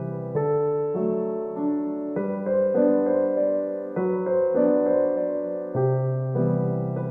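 Background piano music: chords and melody notes changing about every half second to second over held bass notes.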